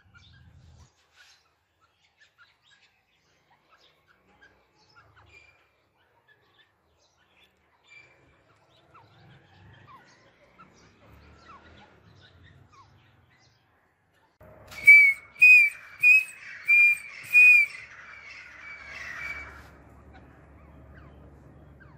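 Grey francolin calling: a run of about five loud, sharp whistled notes about half a second apart, starting about fifteen seconds in, then trailing off into a few softer notes. Before that there are only faint, scattered short notes.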